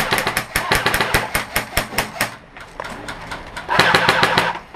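Airsoft electric guns firing on full auto: a rapid run of sharp, evenly spaced cracks for the first two seconds or so, then fainter scattered shots.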